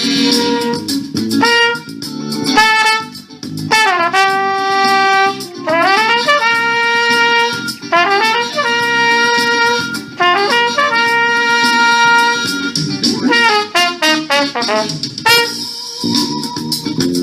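Trumpet solo over a band backing, with held notes and quick runs, several notes scooped or bent into pitch.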